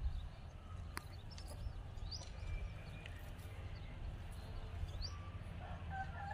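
Small birds chirping in short, scattered high calls over a low steady rumble. Near the end a hen starts clucking.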